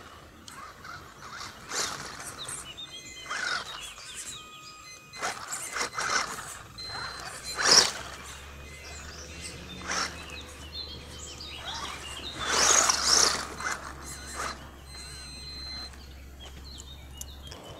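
Wltoys 12428-B 1/12-scale electric RC crawler driving over a dirt track, with irregular bursts of motor and tyre noise as the throttle is worked. The loudest burst comes about eight seconds in, as the truck passes close.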